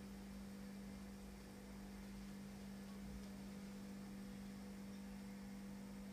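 Steady low electrical hum with a faint hiss underneath; nothing else stands out.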